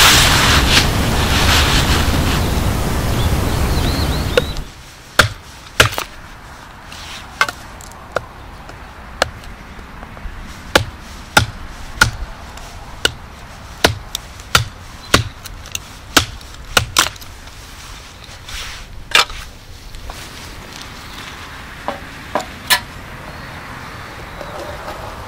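Wind buffeting the microphone, then after a sudden cut a series of sharp, irregular knocks of wood being chopped, roughly one a second.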